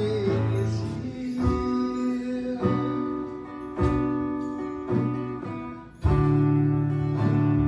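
Slow instrumental worship music: sustained chords change about once a second, growing louder about six seconds in.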